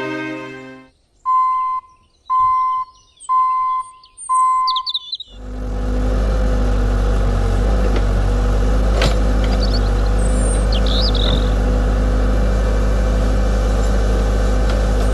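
Four short, evenly spaced beeps about a second apart, then from about five seconds in a steady engine-like hum from a radio-controlled construction machine running. Birds chirp over it.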